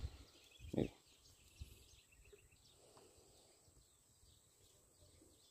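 Quiet outdoor ambience with faint bird chirps, and one short soft sound less than a second in.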